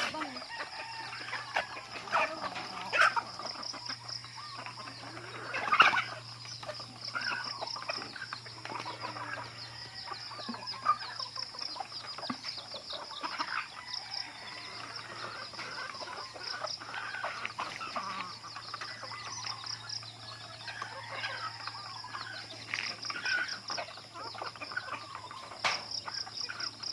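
A flock of native chickens clucking and squawking in short irregular calls, with a louder call about six seconds in. Insects trill steadily behind them.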